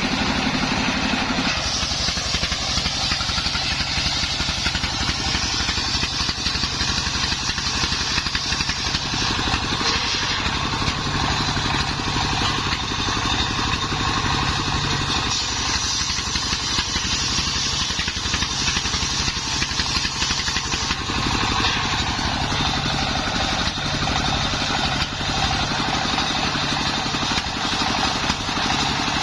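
Engine-driven circular sawmill running steadily while sawing timber into battens, the upper hiss of the cut shifting about two seconds in and again about halfway through.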